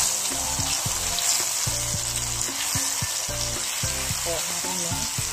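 Blended chili spice paste sizzling steadily in hot oil in a stone-coated wok while a spatula stirs and scrapes it around the pan.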